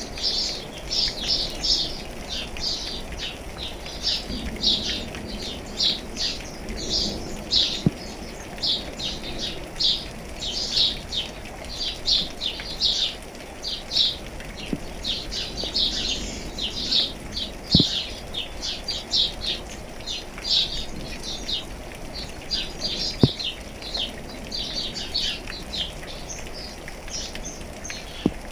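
Birds chirping in quick, dense, overlapping calls over a faint hiss of rain, with a sharp single tap every few seconds.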